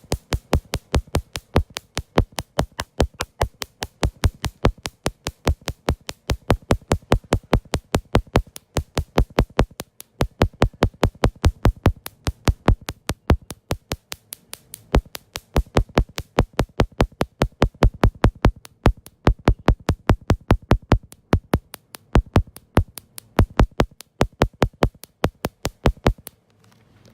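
Electronic dance music with a fast, steady drum-machine beat of about four hits a second, stopping suddenly about a second before the end.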